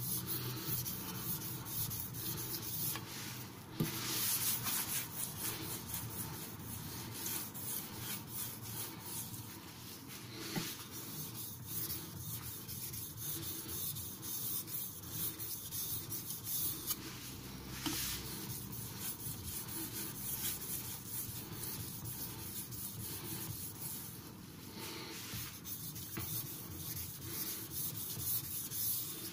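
Carbon-steel (Shirogami) nakiri blade stroked rapidly back and forth on a wet Japanese whetstone covered in slurry: a steady, rhythmic gritty scraping, the slurry grinding off the burr at the edge.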